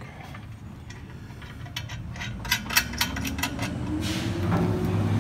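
A string of sharp metallic clinks and taps from shop work on the exhaust. Under them, a low hum climbs slowly in pitch and grows louder over the last few seconds.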